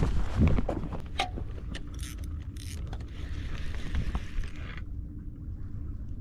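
Spinning fishing reel's mechanism clicking as the rod is grabbed and the reel handle worked to set the hook on a fish that has taken the bait. Scattered sharp clicks in the first few seconds over a steady low rumble.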